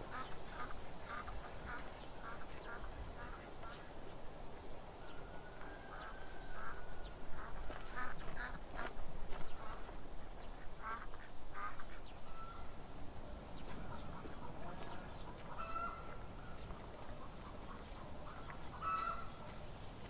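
Farmyard fowl calling on and off in short, repeated calls, with a few longer held calls, over quiet outdoor background.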